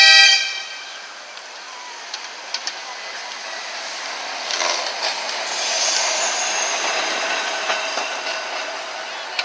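Blackpool Balloon double-deck tram 723 gives a short horn blast at the very start, then rolls past close by, wheels running and clicking over the rails with a faint high squeal, loudest about six seconds in.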